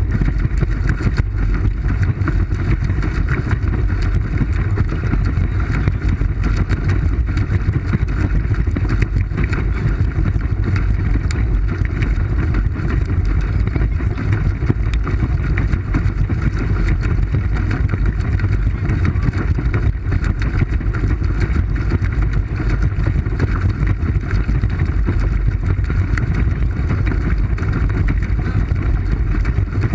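Steady, loud, muffled rumble and hiss of wind and water on a GoPro Hero3's microphone inside its waterproof housing, as a pedal boat moves along the water.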